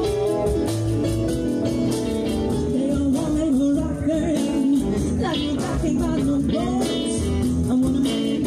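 Live blues band playing: a woman's lead vocal over electric guitar and drums, the singing coming in about three seconds in.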